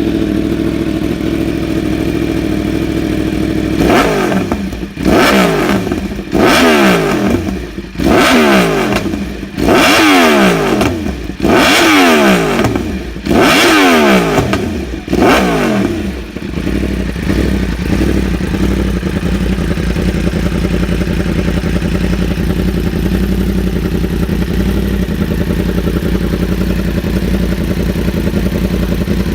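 Yamaha R1's crossplane inline-four through an aftermarket exhaust, idling, then revved in about seven quick throttle blips, each climbing sharply and falling straight back, before settling to a steady idle again.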